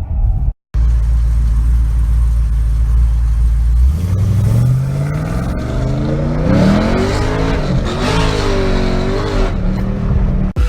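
Dodge Challenger Scat Pack's 392 Hemi V8 idling steadily, then revved from about four seconds in, its pitch rising and falling over several blips of the throttle.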